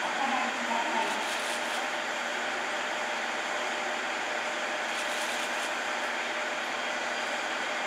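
Steady, even hum of a stationary JR 189 series electric train's onboard auxiliary equipment running at idle, with a faint voice in the first second.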